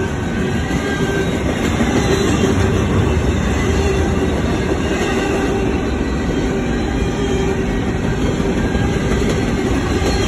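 Double-stack intermodal freight cars of a Norfolk Southern train rolling past, a steady loud rumble of steel wheels on rail, with a faint wheel squeal that comes and goes.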